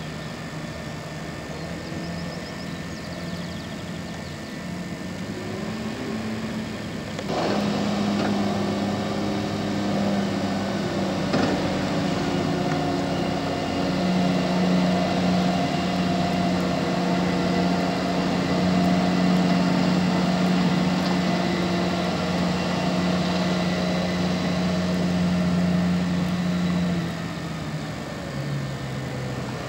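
A vehicle engine running steadily. About seven seconds in there is a short knock and the engine speeds up, holding a higher, steady pitch, then it slows back down near the end.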